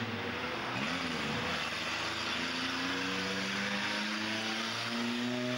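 Motor vehicle engine running, its pitch slowly rising and falling.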